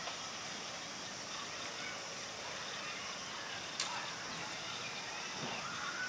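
Steady outdoor hiss with faint distant calls, and a single sharp click about four seconds in.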